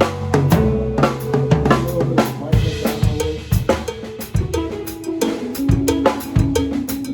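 Drum kit playing a busy groove of kick drum, snare and cymbal hits over a bass line and held pitched notes. The drums come in right at the start.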